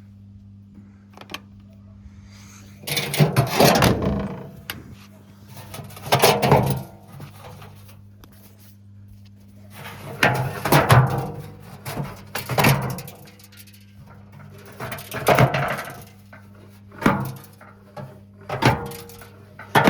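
Haier washing machine running with a brick in the drum: a steady motor hum under loud, irregular thuds and clatters every couple of seconds as the brick strikes the drum.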